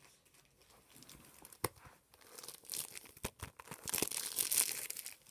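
Crinkly foil booster-pack wrappers being crumpled and handled, with a few sharp clicks; the crinkling builds and is loudest about four seconds in.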